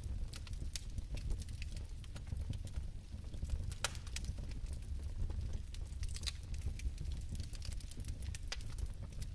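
Bio-fireplace fire burning: scattered sharp crackles and pops, a few a second and uneven, over a low steady rumble.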